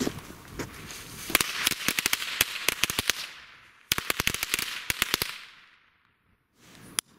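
A mat of old Weco firecrackers going off. A fizzing fuse gives way to a rapid, crackling string of sharp bangs in two bursts, from about a second in to about five seconds in, with one last bang near the end.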